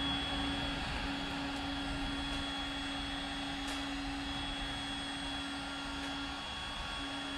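A steady rushing roar with a low hum running under it, like a blower or burner running; the hum drops out briefly near the end.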